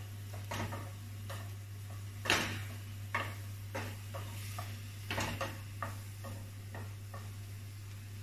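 Wooden spatula stirring calamari rings in a frying pan, knocking against the pan in irregular taps, the loudest about two seconds in and again about five seconds in, over a faint sizzle of frying.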